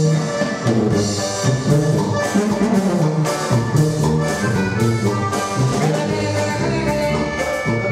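Live band music: a sousaphone playing a bass line under accordion, electric guitar and a drum kit.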